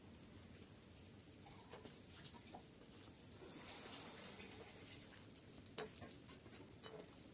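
Fingers kneading rice into chicken curry on a metal plate: faint wet squishing with a few small clicks, and a brief louder hiss near the middle.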